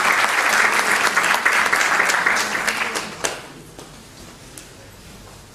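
Audience applauding, a dense patter of many hands clapping that dies away about three seconds in, ending with a last few claps.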